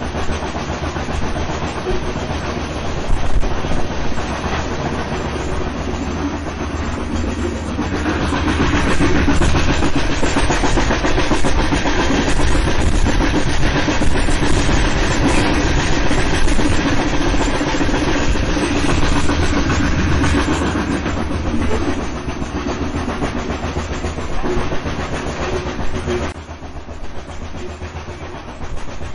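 Steam train running on the rails: a dense, steady noise that grows louder about a third of the way in and drops away suddenly near the end.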